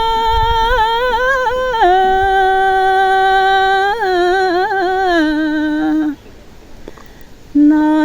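A woman singing a Nepali folk song unaccompanied, drawing out long held notes with warbling turns that step down in pitch. The phrase ends about six seconds in, and after a short breath she comes in again on a low note near the end.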